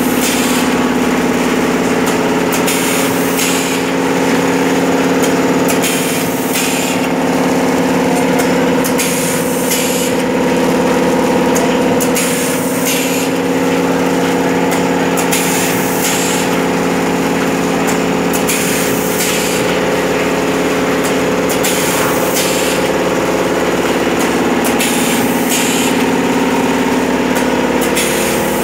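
A vertical form-fill-seal pouch packing machine with a servo auger filler and pneumatic cylinders running: a steady mechanical hum with short hissing bursts every one to two seconds as it cycles through pouches.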